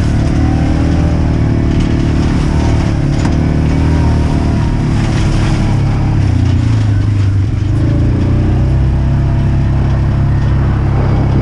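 Engine of a farm vehicle running steadily and loudly, its note shifting slightly about two thirds of the way through.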